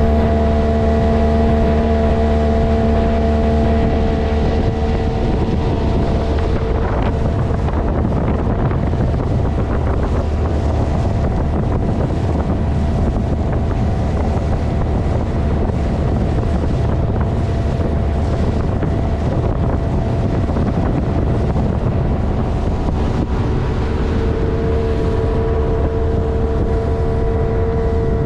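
A vehicle engine drones steadily while travelling, mixed with wind and rushing noise. Its steady tones are clear at first, give way to a rougher rushing noise after about five seconds, and come back clearly near the end.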